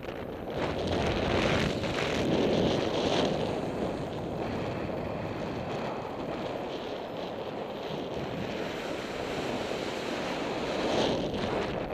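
Wind rushing over the microphone of a paraglider pilot's camera in flight. The noise swells from about one to three seconds in and again near the end.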